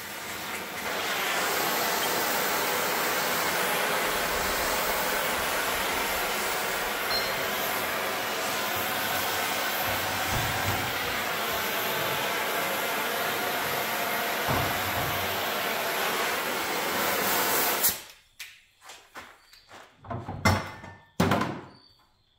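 A gas torch flame hisses steadily while heating a steel part toward a straw colour. It shuts off suddenly, and a few sharp metal knocks follow near the end.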